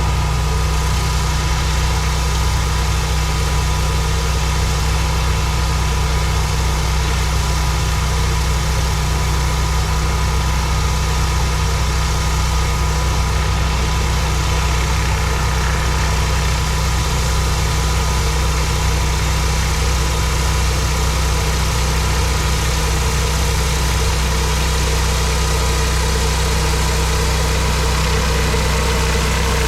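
Pressure washer's engine running steadily with an even hiss of water spray, unchanging throughout.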